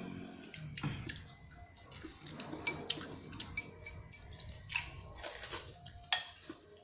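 Metal cutlery clinking and scraping on a plate during a meal: a scatter of light clicks, some with a brief high ring.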